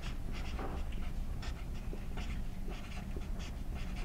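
Dry-erase marker writing on a whiteboard: a string of short scratchy strokes, a few a second.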